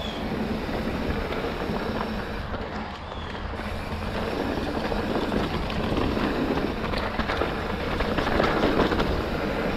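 Mountain bike rolling fast down a dirt and gravel singletrack: knobby tyres crunching over the loose surface and the bike rattling over bumps. The rattling grows denser and louder in the second half.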